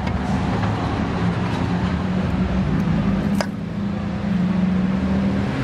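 Steady background noise of a busy street market, with a continuous low hum like nearby traffic or an engine. A single sharp click sounds about three and a half seconds in.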